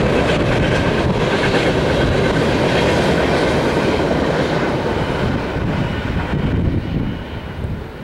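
A freight train of refrigerated boxcars rolling past, with a steady rumble of steel wheels on rail. The sound falls off near the end as the last car goes by.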